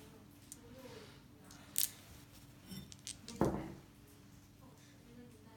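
A few light metallic clinks and ticks as bolts are handled and set into a CNC sprocket adapter, the sharpest about two seconds in and another about three and a half seconds in.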